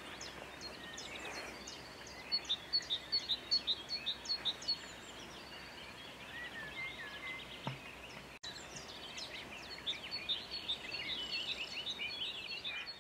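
Small birds chirping, in quick runs of short high notes over a steady outdoor hiss; the chirping is busiest about two seconds in and again near the end.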